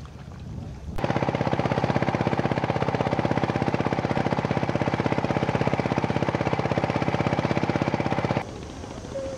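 Fishing boat's engine running at a steady, rapid thumping beat of roughly ten pulses a second. It cuts in abruptly about a second in and cuts out near the end.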